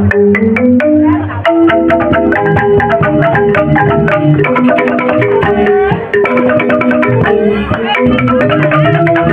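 Joged bumbung gamelan of bamboo xylophones (grantang) playing fast interlocking figures, a dense stream of short struck notes with percussion.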